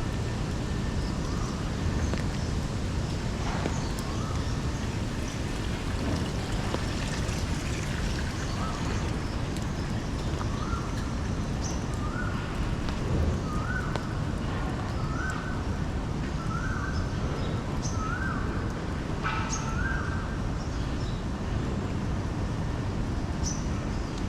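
A bird repeats a short whistled call about once a second, each note rising, holding and dropping, and the series climbs slightly in pitch from about a third of the way in until near the end. It sits over a steady outdoor city hiss and rumble, with a few brief high chirps.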